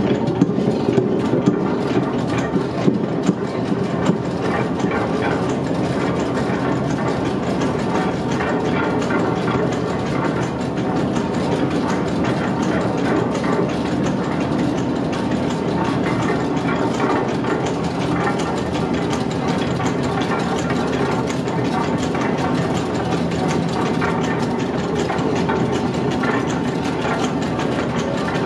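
Machinery of a water-turbine-era stone-grinding gristmill running at work, here driven by a hydraulic motor: a steady rumble with a dense, fast clatter and rattle that keeps an even level.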